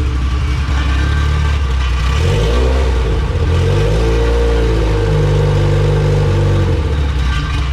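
Honda B18 DOHC four-cylinder engine running; its speed rises about two seconds in, holds higher for several seconds, then drops back near the end, as the idle is being dialed in.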